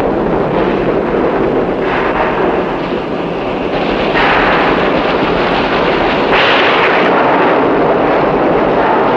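Loud, continuous industrial roar of factory machinery, a dense rushing noise with no clear tone. It turns brighter and harsher in steps about two, four and six and a half seconds in.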